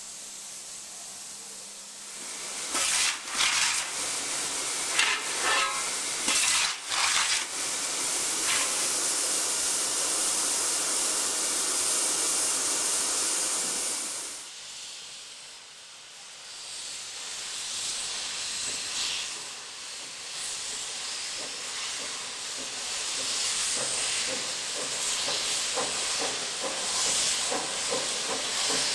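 Steam locomotive hissing steam, a steady rush with several sharper surges in the first few seconds. It dies down briefly about halfway, then builds again.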